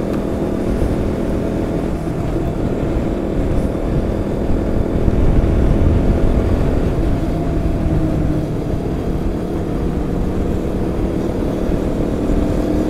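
Motorcycle engine running at a steady cruise, with wind and road rumble.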